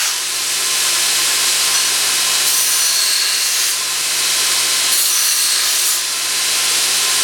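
Homemade belt grinder driven by a 2 hp electric motor, running steadily with a workpiece pressed against the abrasive belt twice, each time adding a harsher grinding hiss for about a second; the motor holds its speed under the load.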